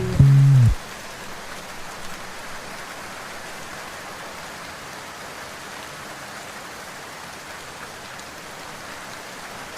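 Steady rain, an even hiss of falling drops with no other sound over it once the last music notes stop under a second in.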